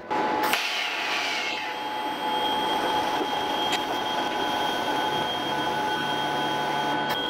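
TIG welding arc running steadily: an even hiss and buzz with a thin high whine over it, cutting in suddenly at the start as the arc is struck on a steel bracket.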